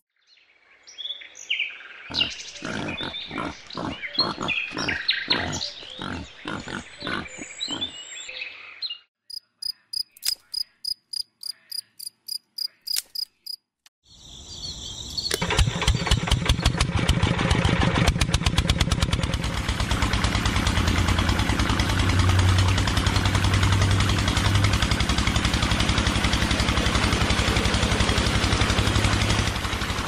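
Miniature model engine and toy water pump, driven by a small electric motor, starting about halfway through and then running with a steady buzzing hum and fast ticking. Before it there is some irregular clattering, then a run of short, evenly spaced pulses about twice a second.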